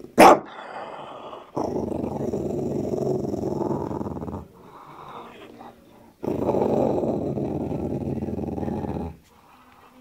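Cavalier King Charles spaniel puppy growling over its bone: two long low growls of about three seconds each, a warning to keep away from the bone it is guarding. A sharp knock just at the start is the loudest single sound.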